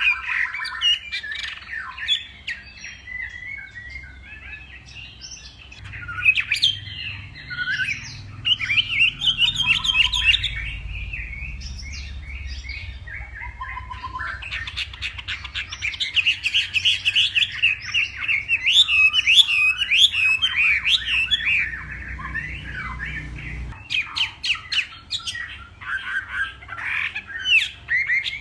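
Chinese hwamei singing a long, varied song of quick whistled phrases, with a few short pauses.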